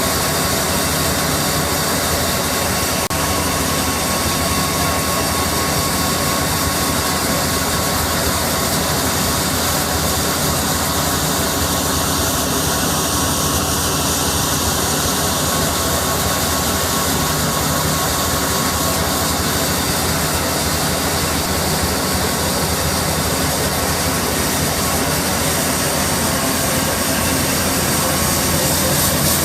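REM Grain Vac VRX pneumatic grain conveyor running steadily: a constant loud rush of air from its blower with a steady high tone and a low engine hum underneath.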